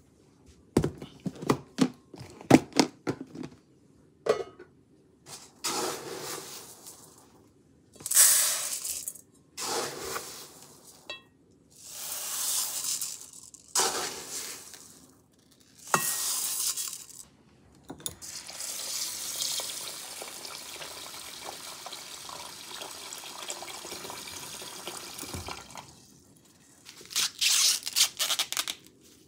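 Uncooked rice scooped from a plastic storage container and poured into a rice cooker's inner pot in several separate pours, with clicks and rattles of the scoop at first. Water then runs steadily for about eight seconds. Near the end come crackly bursts as husks are torn from an ear of fresh corn.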